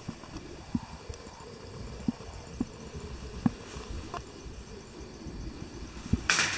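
Footsteps on wooden flooring and handling knocks from a handheld camera as the person filming walks through the rooms, over a low rumble, with a brief rustle near the end.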